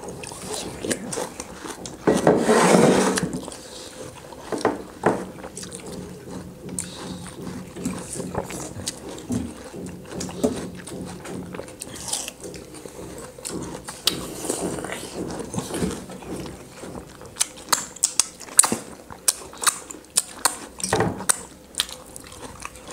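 Several people biting and chewing pieces of watermelon close to the microphone: wet mouth noises and short crisp crunches. The crunches come thick and fast near the end.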